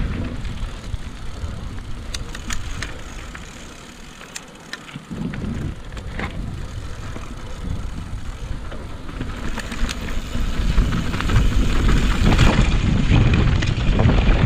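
Mountain bike tyres rumbling over a rocky dirt trail on a fast descent, with wind noise on the camera microphone and scattered sharp clicks and knocks from stones and the bike. The rumble eases off a few seconds in, then grows louder again toward the end.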